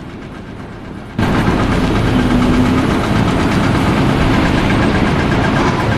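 A quieter engine hum, then about a second in a sudden change to a loud engine running steadily with a heavy low rumble.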